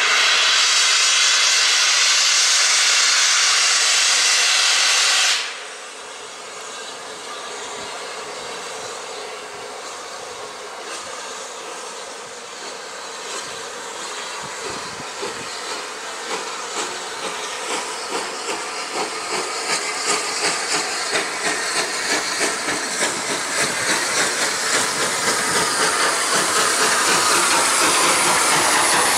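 Steam locomotive 34053, a rebuilt Bulleid Battle of Britain class three-cylinder pacific, starting away. It opens with a loud hiss of steam that cuts off suddenly about five seconds in. From about halfway its exhaust beats begin, quickening and growing louder as it draws near.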